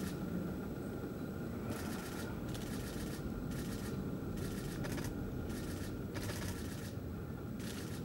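Short bursts of dry rustling, about eight of them at uneven intervals, over a steady low rumble.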